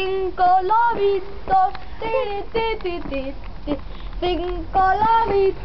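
A child singing a simple tune in short phrases, some notes held and some sliding.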